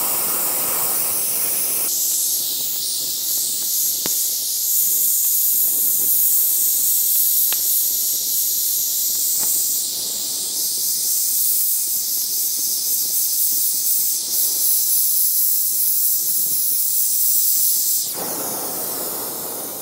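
Steady hiss of an oxy-fuel torch flame heating a drive shaft's double cardan U-joint bearing cap to burn out the injected plastic retainer. The hiss thins to a higher pitch about two seconds in and fills out again near the end, with a few faint ticks.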